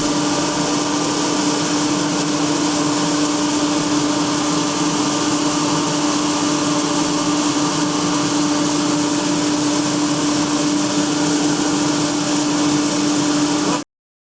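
Engine of a farm machine running steadily at constant speed, with a strong, even hum; it cuts off suddenly near the end.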